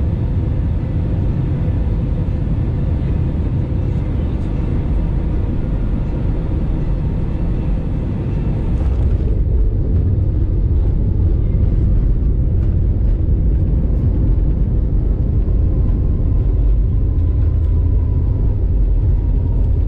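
Airbus A320 cabin noise on landing: a steady rumble of engines and airflow, then about nine seconds in the aircraft touches down and a somewhat louder rumble of the wheels rolling on the runway takes over.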